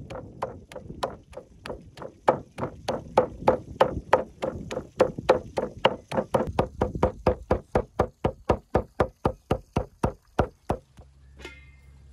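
Meat cleaver chopping raw meat on a wooden stump block: a steady run of quick strikes, about four a second, that stops near the end.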